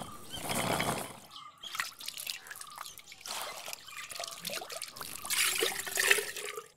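Water poured from a large metal pot into a small brass vessel, trickling and splashing as it overflows the rim, loudest about five to six seconds in.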